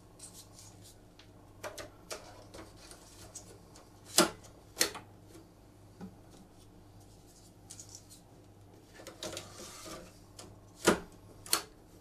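Plastic drive trays of a QNAP TS-h973AX NAS being slid into their bays, with sliding rubs and sharp clicks as each tray latches home. The loudest clicks come in two pairs, about four seconds in and near the end.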